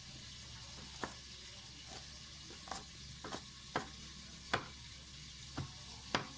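Kitchen knife chopping fresh ginger on a cutting board: several sharp, unevenly spaced knocks of the blade on the board, over a steady background hum.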